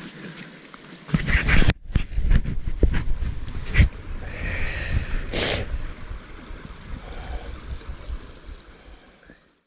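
Wind buffeting and handling noise on the action camera's microphone: irregular low rumbling from about a second in, with a few sharp knocks, fading out near the end.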